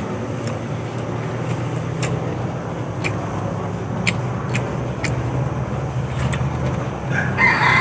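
Steady low hum of an engine running, with a few short sharp clicks scattered through it.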